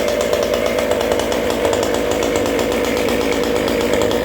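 29cc two-stroke Goped scooter engine running steadily at a constant speed, with no revving.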